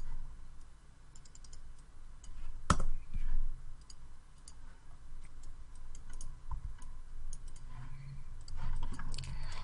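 Computer mouse clicks and keyboard key presses while working in 3D modelling software: scattered sharp clicks, one louder about three seconds in.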